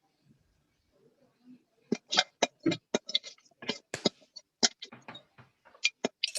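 A quick, irregular run of short clicks and taps, starting about two seconds in.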